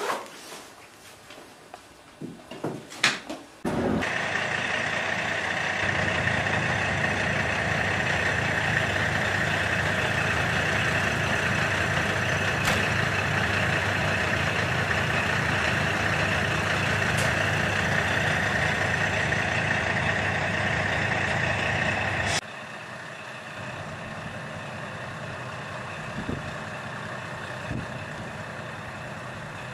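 A diesel railcar's engine idles steadily with a high, steady whine over it. About two-thirds of the way in it cuts suddenly to a quieter diesel railcar engine running. A few faint knocks come before the engine sound starts, about four seconds in.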